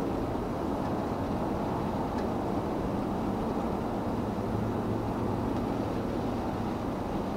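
Airbus A320's jet engines on the landing roll, a steady low rumble with no sharp events.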